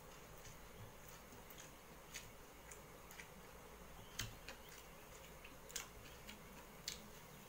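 Faint, irregular clicks and light taps of fingers working rice against a steel plate, with a sharper tick about four seconds in and a few more near the end.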